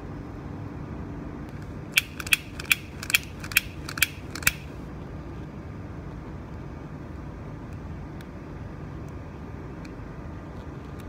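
Seven sharp clicks about 0.4 s apart, a butane torch lighter's igniter being clicked to light it for shrinking heat-shrink tubing over a soldered wire joint, over a steady low background noise.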